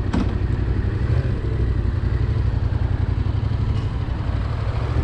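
Motorcycle engine running steadily on the move, with a heavy low rumble.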